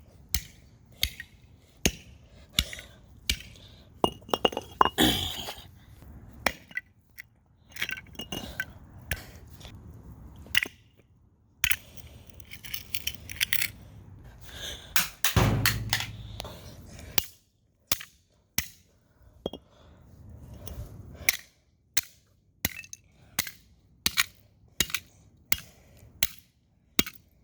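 A plastic charger being smashed: a long run of sharp knocks and cracks, one blow every half second to a second, with a few short crunching stretches in between.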